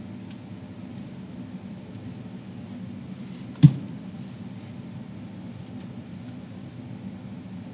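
A single sharp knock about three and a half seconds in, over a steady low hum.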